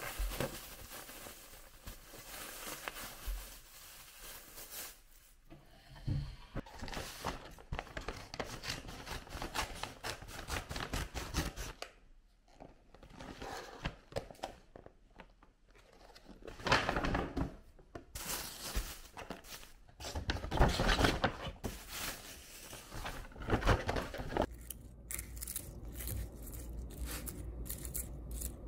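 Plastic bag and plastic food packaging crinkling and rustling as they are handled and opened, in irregular bursts with tearing and scraping sounds.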